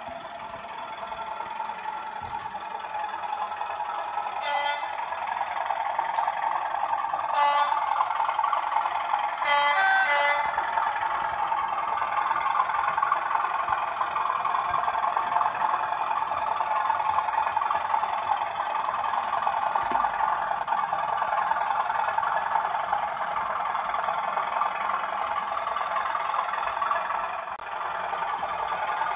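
Model Class 97/3 locomotive's sound decoder playing a Class 37 diesel engine running steadily through a small speaker, with three horn blasts about four, seven and ten seconds in, the last one longer.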